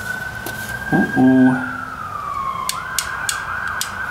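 A distant siren sounds as a single tone that holds, slowly falls, then jumps back up about three seconds in. Over it come several sharp clicks from a ratcheting wire crimper and a brief low hum of a voice about a second in.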